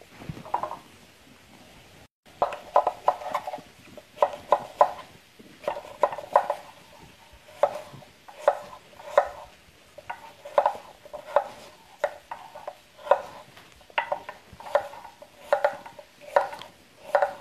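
Kitchen knife dicing crisp Fuji apples on a wooden cutting board: a steady run of short chopping knocks, about two a second, mostly from about two seconds in.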